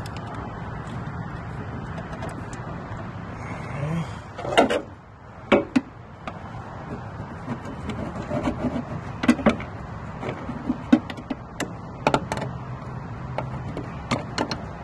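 Brake booster being pushed and wrestled into place against the firewall of a 1999 Nissan Pathfinder: scattered knocks and clunks as the metal booster is forced into position, over a steady low hum.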